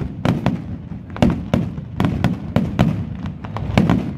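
Aerial fireworks bursting in quick succession: a rapid series of sharp bangs, about three to four a second, over a continuous low rumble.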